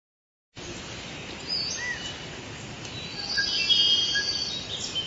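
Birds chirping and singing over a steady background hiss: short whistled notes and trills, starting about half a second in and busiest in the middle.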